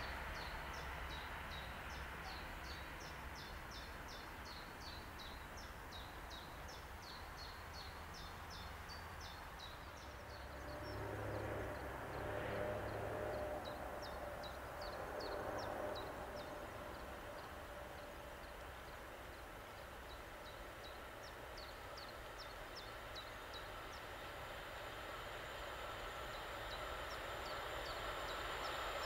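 A songbird repeating short, high, falling notes about three a second in long runs, over the faint rumble of a DB Class 185 electric locomotive with tank wagons approaching, growing louder near the end.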